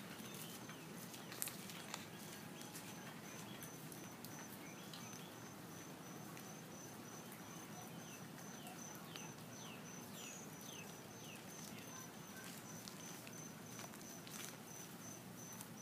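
Faint outdoor ambience of crickets trilling steadily in a fast, even high-pitched pulse. About halfway through, a bird gives a run of half a dozen short, falling chirps.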